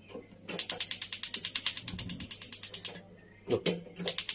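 Gas stove burner's spark igniter clicking rapidly and evenly as the burner is lit, in two runs with a short break and a knock about three and a half seconds in.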